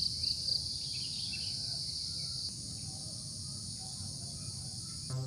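Steady high-pitched chorus of insects trilling, pulsing briefly at the start, with faint bird chirps over a low background rumble. Music comes in right at the end.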